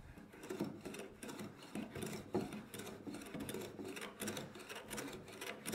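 Hand smoothing plane with a freshly sharpened blade, worked in repeated strokes along the rough edge of a hard maple board. It makes a rapid, uneven rasping made of many small ticks as it takes shavings.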